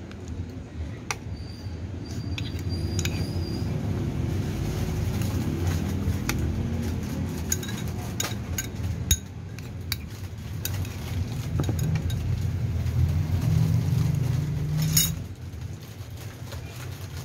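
Metal spoon clinking and scraping against a ceramic rice bowl, with scattered sharp clinks and a louder one about fifteen seconds in. Under it a low rumble swells through the middle and drops away after that last clink.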